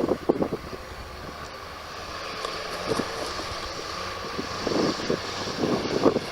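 Sherp amphibious ATV's diesel engine running steadily, with gusts of wind buffeting the microphone now and then.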